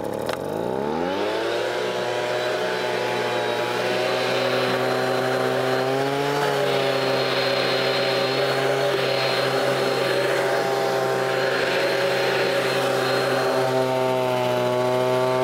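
Leaf blower revving up over the first second or so, then running steadily at full throttle with a rush of air as it blows grass clippings off a riding mower, and throttling down at the very end.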